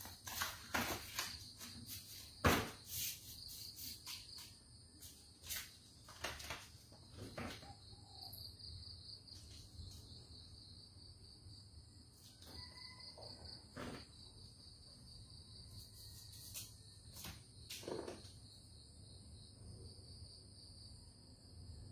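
A steady, high-pitched, faintly pulsing trill runs throughout, like crickets, with scattered short knocks and taps. The loudest knock comes about two and a half seconds in.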